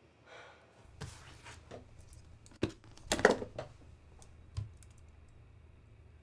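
Sparse typing on a slim low-profile computer keyboard: a few scattered key clicks, with a louder short burst just after three seconds and a low thump about four and a half seconds in. A steady low room hum runs underneath.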